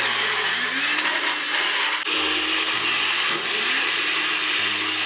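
Countertop blender running steadily at full speed, puréeing roast root vegetables with stock into a thick soup.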